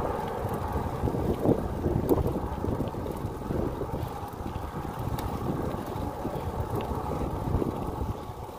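Wind buffeting the microphone of a rider cycling into a strong headwind: a steady, fluttering rumble.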